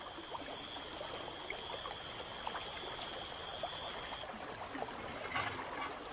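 Flooded jungle river water rushing steadily past. A thin, high, steady insect whine cuts off about four seconds in, and there is a brief splash about a second later.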